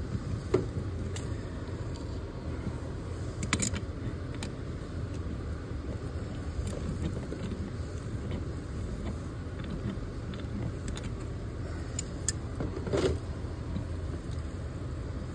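A few short metallic clicks and knocks as pliers grip and slip on a garden hose's metal coupling that is stuck on a hose bib, over a steady low rumble.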